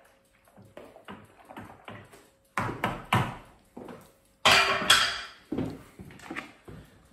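Wooden spoon stirring yeast into beer wort in a plastic fermenting bucket: quick, repeated knocks and swishes, about three a second. About halfway through comes a louder clatter, as the bucket's plastic lid is picked up.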